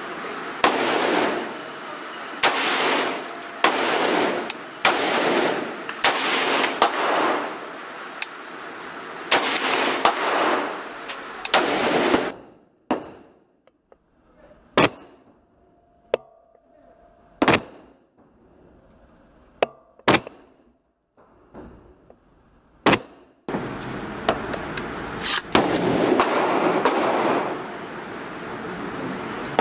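Semi-automatic shots from an AR-15 chambered in 7.62x39, each crack followed by heavy echo in an indoor range. A steady string of shots comes about one a second, then a quieter stretch of a few isolated cracks, then fast shooting again near the end.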